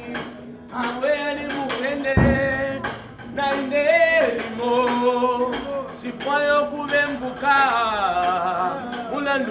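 Live gospel song: male voices singing a lead line with backing singers over a drum kit keeping a steady beat. A heavy low thump sounds about two seconds in.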